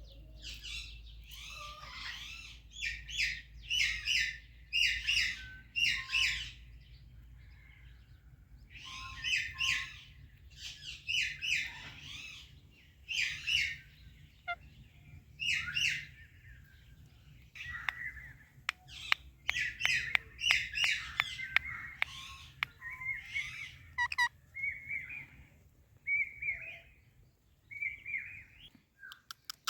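Indian ringneck parakeet calling: clusters of shrill repeated chirps and squawks in the first half, then softer, shorter chattering calls with a few sharp clicks about two-thirds in, over a faint low hum.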